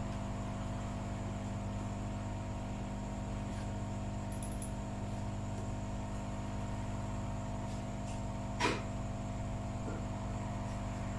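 Steady electrical hum from workbench equipment, made of several fixed tones, with a single short click about three-quarters of the way through.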